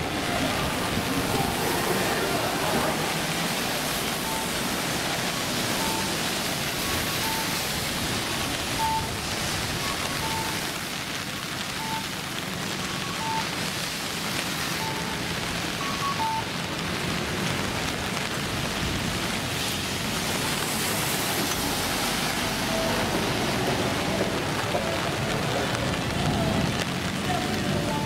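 Steady hiss of rain falling on a busy city street, mixed with passing traffic. Through the middle stretch a short electronic beep repeats about every two-thirds of a second for roughly twelve seconds.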